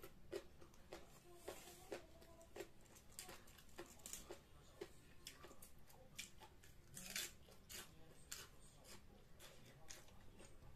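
Quiet, irregular eating sounds: a person chewing and crunching food, with small sharp clicks and crackles as food is torn apart by hand.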